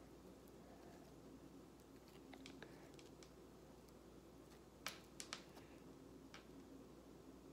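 Faint clicks and soft sticky peeling as fingers with long acrylic nails pull strips off a soft yellow piece, with a few sharper clicks about five seconds in.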